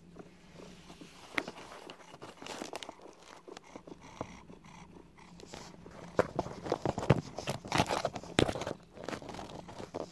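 A cat's paw scratching and rustling on cardboard, with many sharp clicks and knocks against the box and phone, getting louder and busier in the second half.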